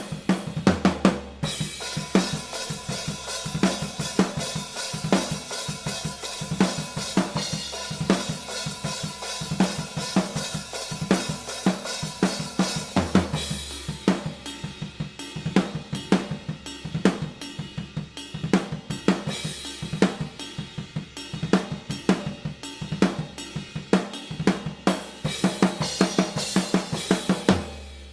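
Acoustic drum kit played in a steady groove, with snare, kick drum, hi-hat and busy cymbals. It is recorded raw, with no processing, through a pair of AKG C-214 condenser overhead microphones. Just before the end the playing stops and the kit rings out and dies away.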